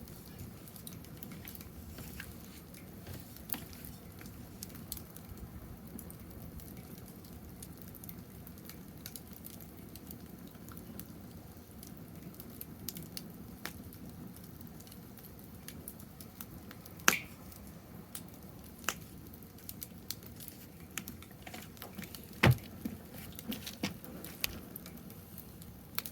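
Wood fire crackling: a steady scatter of small crackles and ticks, with two louder sharp pops, one a little past the middle and one later.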